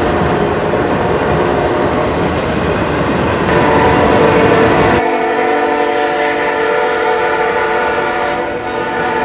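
Diesel locomotive air horn sounding a long chord of several tones as a train approaches a grade crossing. For the first few seconds it sits over loud rumbling train noise. About five seconds in, the sound changes abruptly to the clear, held horn chord.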